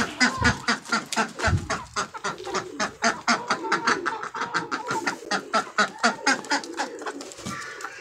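Chickens clucking in a fast, even run of short calls, about six a second, fading out near the end.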